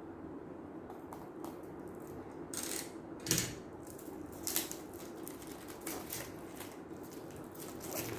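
A keyboard and its packaging being handled: irregular clicks, rustles and light knocks, the loudest about three and four and a half seconds in, over a steady low hum.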